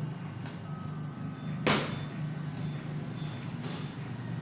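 Plastic water bottle tossed and landing on a wooden tabletop: one sharp knock about a second and a half in and a fainter one about half a second in, over a steady low hum.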